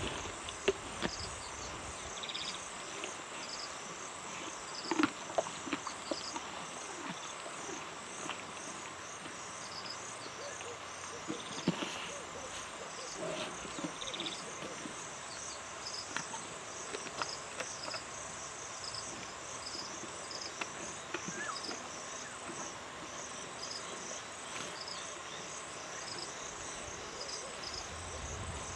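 A steady chorus of insects chirping in an even repeating pattern, broken by scattered sharp cracks and chewing sounds from a lioness feeding on a warthog carcass, the loudest near the start, about 5 seconds in and about 12 seconds in.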